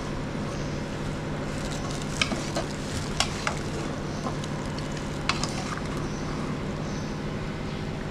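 Metal spoon stirring and scraping pieces of meat in an aluminium pot over a gas burner, with a few sharp clinks against the pot, over a steady sizzle from the pot.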